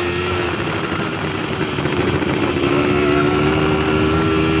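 An ATV engine running under way, with rumble and road noise from the ride; the engine note climbs slightly in the second half.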